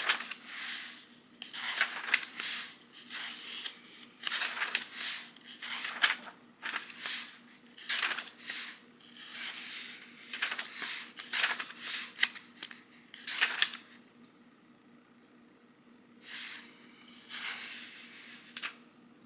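Book pages being leafed through: a quick run of papery rustles and flicks while searching for a passage, easing off about two-thirds of the way in, then a few more page turns near the end.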